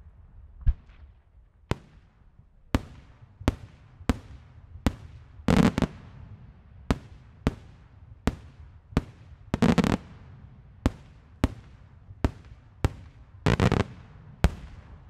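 Daylight fireworks: aerial shells bursting overhead in a steady run of sharp bangs, about one every two-thirds of a second, each fading away in a rolling echo. Three times, about a third of the way in, two-thirds in and near the end, a quick cluster of rapid crackling reports goes off.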